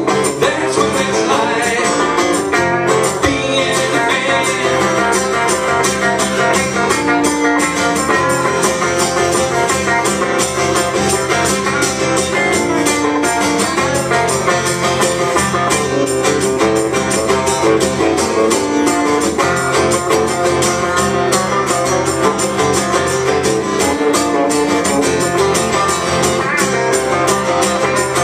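Live acoustic guitar strummed in a steady rhythm, with an electric guitar playing along.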